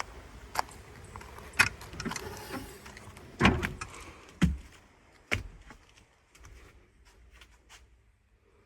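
A run of irregular knocks, clicks and thuds, like things being handled and set down, the heaviest about halfway through, dying away near the end.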